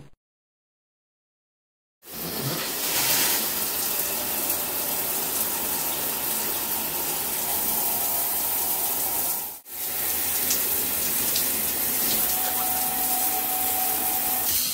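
Kohler Adjuste 3-in-1 showerhead spraying at full flow with its water restrictor removed, a steady hiss of water hitting the tiled shower. It starts about two seconds in and breaks off for an instant about ten seconds in.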